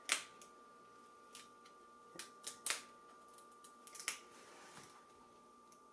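Small sharp clicks and ticks of a thin pry tool working under a tablet's glued-down lithium battery, about half a dozen at irregular spacing, the loudest near the start and just before the middle.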